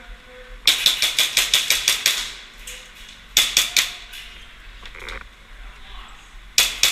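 Airsoft gun firing in bursts of sharp shots: a string of about ten in quick succession, about seven a second, then a shorter string of about four, and two more near the end.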